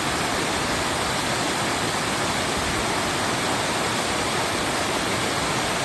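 Waterfall: a steady rush of falling water, loud and even throughout.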